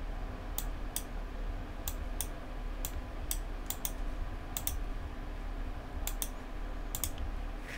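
Scattered sharp clicks of a computer keyboard and mouse, often in close pairs, about fifteen in all, over a steady low electrical hum.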